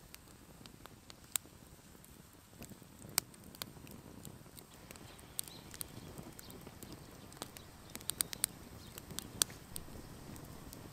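Wood fire crackling in a small folding metal camp stove: scattered, irregular sharp pops and snaps over a low hiss, coming more often in the second half.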